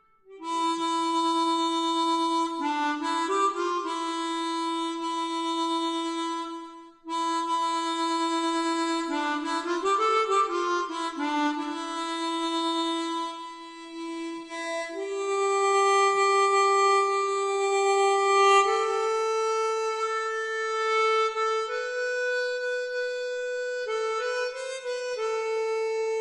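Music: a solo reed-like wind instrument playing a slow melody of long held notes.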